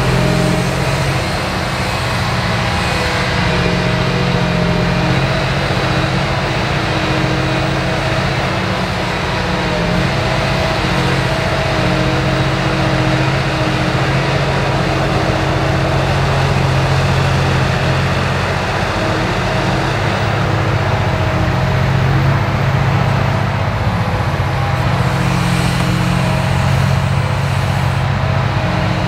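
Caterpillar 6020B hydraulic mining excavator's diesel engine running steadily under digging and swinging load, a loud continuous drone whose note shifts slightly about two-thirds of the way through.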